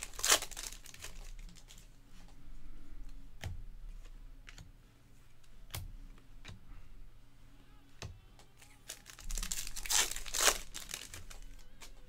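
Foil wrapper of a baseball card pack torn open and crinkled, with a loud burst right at the start. Cards are handled with a few light clicks, then another loud burst of crinkling about ten seconds in.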